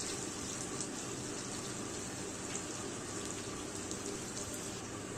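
Sliced onions sizzling in hot oil in a kadhai: a steady hiss with faint crackles, as they are fried until browned.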